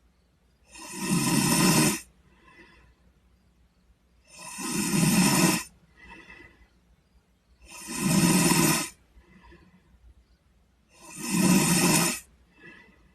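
A sleeping boy snoring: four long snores about three and a half seconds apart, each building up in loudness and then cutting off, with a fainter breath between them.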